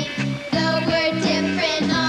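Upbeat band music with a steady beat.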